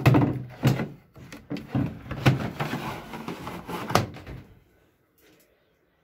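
Plastic water tank of a Whirlpool tumble dryer clattering and scraping as it is slid into its slot in the dryer's front panel, with a series of knocks. The knocks stop about four and a half seconds in.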